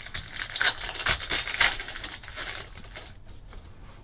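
Crinkling and rustling of a trading-card pack's foil wrapper and cards being handled as the pack is opened, a dense run of crackles for about three seconds that then fades to faint rustles.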